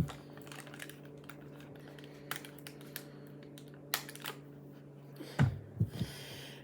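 Bead-filled slime being squished and poked by hand, giving scattered small clicks and pops. A few low thumps come a little past five seconds in.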